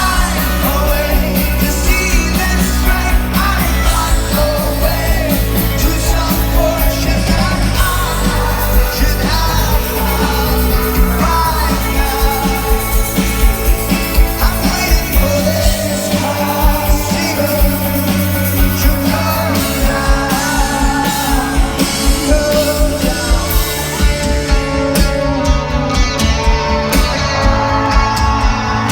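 Rock band playing live, a male lead singer over drums, bass and electric guitar, with a steady beat.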